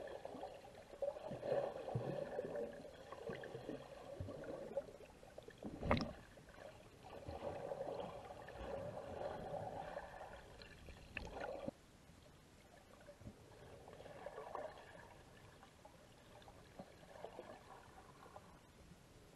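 Muffled underwater water noise heard through a camera's waterproof housing, swelling and fading unevenly, with two sharp knocks against the housing. About two-thirds through it drops suddenly to a faint hiss.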